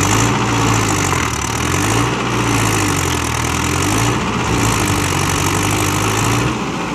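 Tractor diesel engine running, its pitch rising and falling about every two seconds, easing off near the end.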